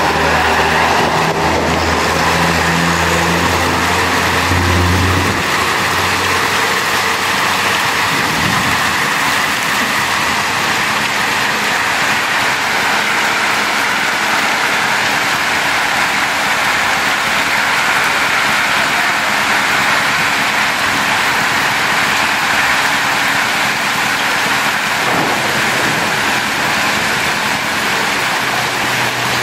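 Heavy rain mixed with hail pouring down in a steady hiss. A vehicle engine hums low under it for about the first five seconds.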